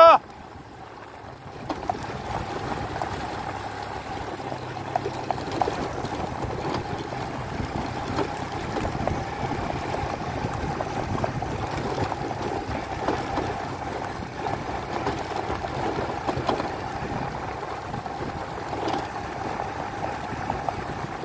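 A vehicle's engine running steadily as it keeps pace with a horse, with wind noise and faint, irregular hoofbeats on a dry dirt track.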